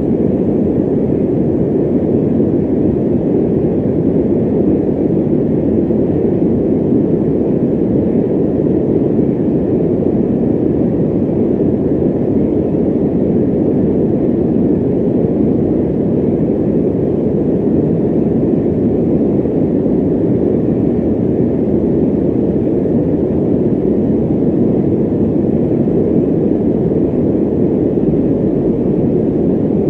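Electric fan running steadily: an even, low rushing of air with no hum, rhythm or change.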